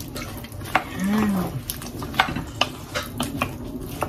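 Wooden spoon stirring chicken and green papaya in coconut milk in a pot, with irregular clacks of the spoon against the pot's side. A brief low hum-like tone sounds about a second in.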